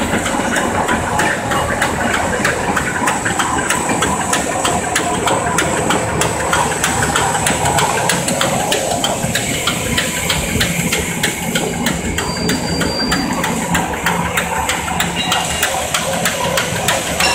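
Automatic napkin tissue making machine running: a steady mechanical din with rapid, evenly repeating clicks from its printing, embossing, folding and cutting sections.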